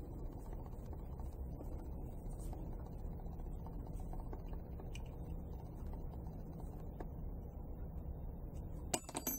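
Faint small clicks and ticks from a plexiglass gearbox and its metal shafts being handled and tightened with a small hex key, over a steady low hum. A quick cluster of sharper clicks comes near the end.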